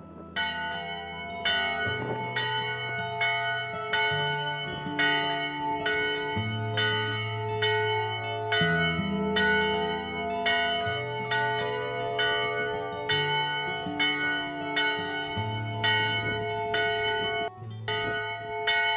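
A single church bell on a post, rung by pulling its rope, striking steadily about twice a second with a long ringing tone. Low held notes sound underneath, shifting pitch every couple of seconds.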